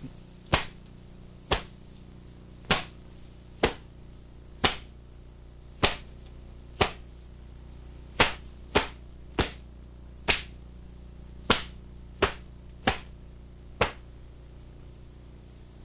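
Taekwondo uniform (dobok) snapping sharply at the end of each block and strike of a poomsae form: about fifteen cracks, mostly a second apart with a few quicker pairs, over a low steady hum.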